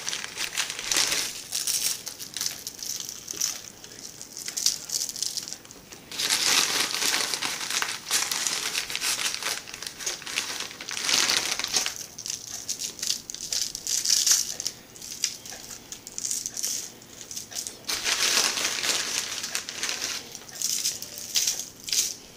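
Crinkling of a plastic bag of brown sugar and the aluminium foil lining a baking pan as brown sugar is grabbed and spread by hand over bacon-wrapped sausages, in several bursts a few seconds apart.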